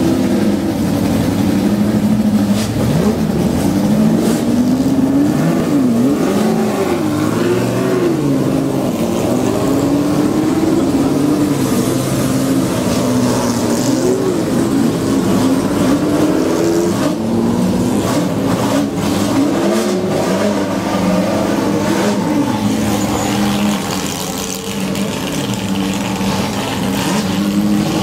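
Several Ford GT40 V8 engines running at low speed and being revved, their pitch rising and falling unevenly as the cars pull away.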